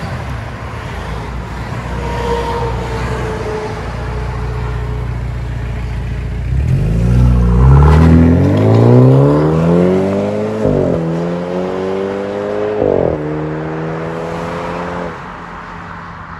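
2013 BMW 328i's turbocharged 2.0-litre four-cylinder, breathing through a muffler-deleted 3-inch exhaust, running low and steady. About six seconds in, the car pulls away hard: the engine note rises, drops at two upshifts and climbs again each time, then fades as the car drives off.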